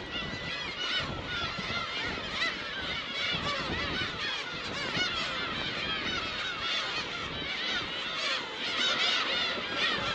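Colony of black-tailed gulls calling: many birds at once, their cat-like mewing cries overlapping into a dense chorus that grows louder near the end.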